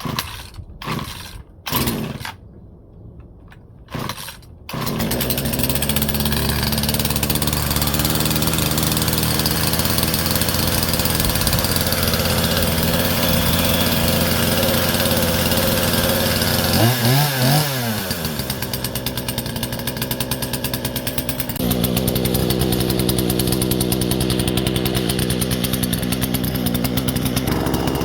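Husqvarna 120 Mark II two-stroke chainsaw being started: a few short bursts, then the engine catches about five seconds in and runs steadily. Near the middle it revs up and back down once, and the engine note changes twice after that.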